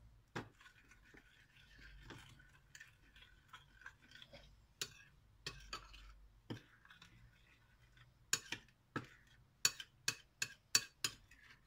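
Spoon stirring yeast and sugar in a small glass bowl to dissolve them: scattered light clinks against the glass, turning into quicker, sharper clinks about three a second from about eight seconds in.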